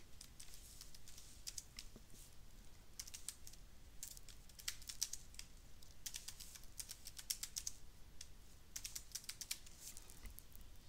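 Faint typing on a computer keyboard: runs of quick keystroke clicks with short pauses between them.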